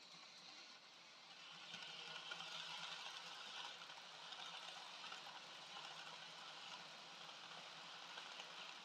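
Dapol N gauge HST model train running on its track: a faint, steady hiss-like running noise of its motor and wheels on the rails, growing louder about a second and a half in as it draws near.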